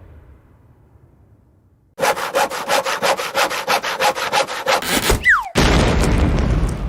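Cartoon sound effect of rapid back-and-forth sawing, about six strokes a second, lasting about three seconds. It ends in a short falling whistle and then a loud noisy crash that fades away.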